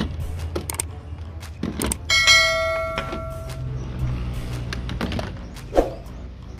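Subscribe-button animation sound effect: a few sharp mouse-style clicks, then a bright bell ding about two seconds in that rings for about a second and a half. A single sharp knock of plastic follows near the end.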